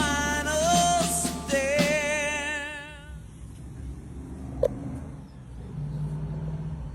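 A rock song with a man singing ends about three seconds in. A low steady rumble follows, with one short click a little past halfway: a car engine idling.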